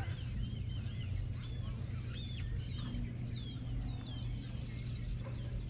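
Birds chirping and whistling over and over, short sliding calls, over a low steady rumble.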